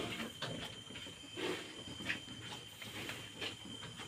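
Scattered soft rustles and knocks from handling in a sow's farrowing pen, over a steady high insect trill.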